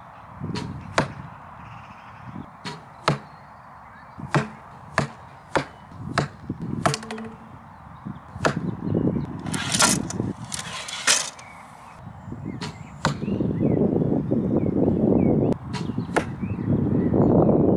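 Arrows being pulled out of a foam archery target boss: a dozen or so sharp clicks and knocks as the shafts come free and clack together, with two brief scraping sounds about ten seconds in.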